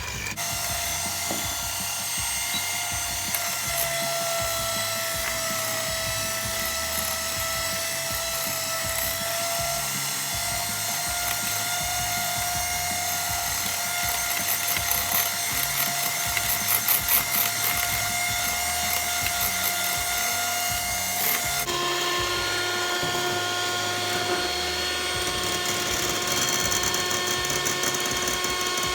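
Electric hand mixer running steadily, whisking the egg whites; its motor pitch changes about two-thirds of the way in.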